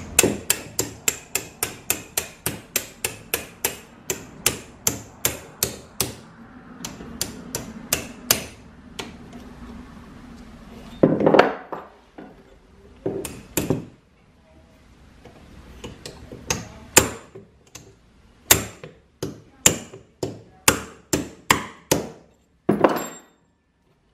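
Hammer tapping to drive a tapered pin out of an old Pickering steam-engine governor. A quick, even run of light taps, about three a second, lasts some eight seconds; after that come fewer, harder blows at uneven intervals.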